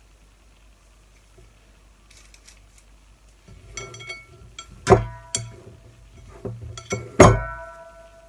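Kitchenware clinking and knocking: light clicks, then two louder knocks about two seconds apart that ring on briefly with a metallic tone.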